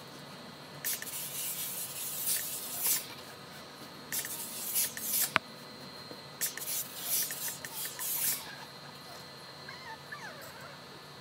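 Steam iron hissing in three bursts of steam as it is pressed over the cloth, with a single sharp click in the middle of the bursts.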